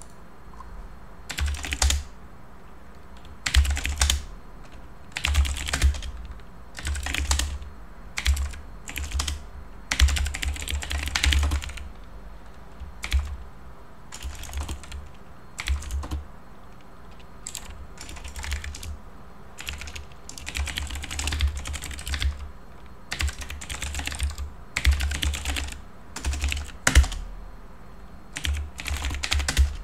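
Typing on a computer keyboard: runs of keystrokes separated by short pauses, starting about a second and a half in.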